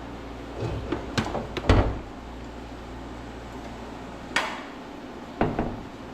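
Scattered metallic clunks and knocks as a hoisted engine and transmission are lowered into a car's engine bay. The heaviest clunk comes just under two seconds in, a brief scrape about four seconds in, and two more knocks near the end.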